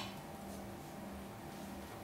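Quiet kitchen room tone with a steady low hum and no distinct event.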